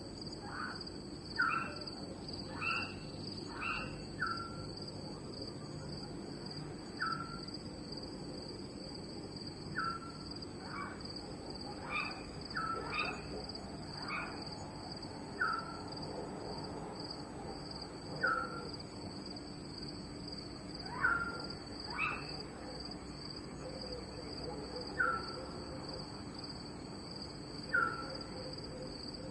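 Nighttime cricket chorus: a steady, high, unbroken trill. Over it a short chirping call from another animal repeats every two to three seconds, with a quicker cluster of calls in the first few seconds and again around the middle.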